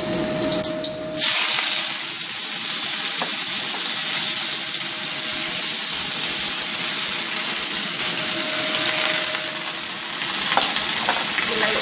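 Ice-cold cabbage dropped into hot oil about a second in, then sizzling loudly and steadily as it fries in the pan.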